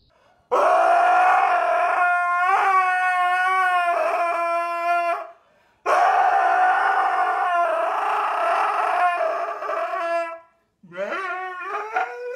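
A husky howling: two long, steady howls of about four to five seconds each, then shorter howls that rise and fall near the end.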